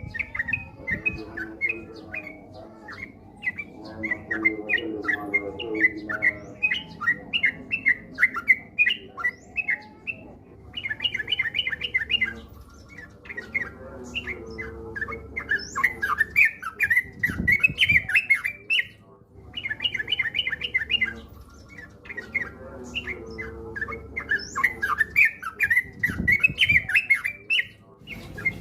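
Yellow-vented bulbuls singing: dense, rapid, bubbling chattered phrases that run on with only a few brief breaks. There are a couple of low thumps in the second half.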